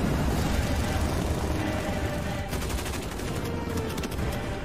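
Film-soundtrack battle: rapid machine-gun fire from the gunships' guns, densest around the middle, over an orchestral score.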